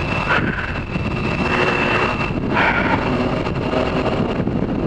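Sport motorcycle ridden at road speed: engine running under steady wind and road noise, with a thin high whine that fades about two seconds in.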